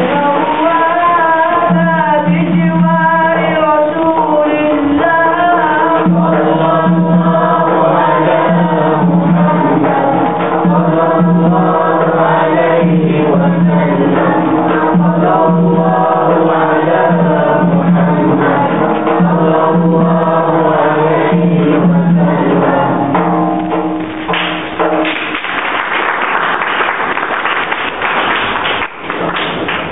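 A voice singing a wavering melody over a backing track with an even, pulsing drum beat. The music breaks off about 25 seconds in, giving way to a dense, even noise.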